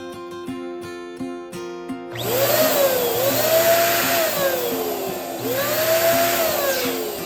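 Electric balloon pump running in two bursts of about three and two seconds, starting about two seconds in. A tone rises and then falls in each burst as the balloon fills. Background music with plucked guitar notes plays throughout.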